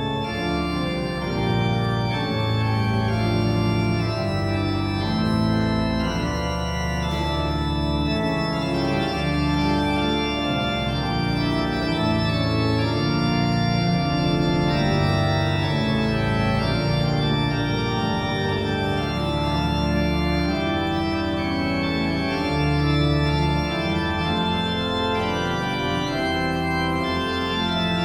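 Organ playing slow, sustained chords that change every second or two, at a steady level: instrumental music opening a church worship service.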